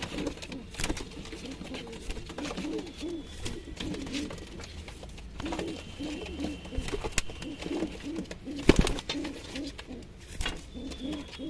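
A flock of domestic high-flyer pigeons cooing: many low, rolling coos overlap and repeat throughout. Scattered light clicks run under the coos, and one sharp knock comes near nine seconds in.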